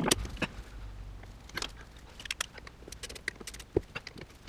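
Socket ratchet clicking and metal tools knocking as the small screws that hold the new brake disc to the hub are tightened: irregular sharp clicks, some in quick runs, with a few louder knocks.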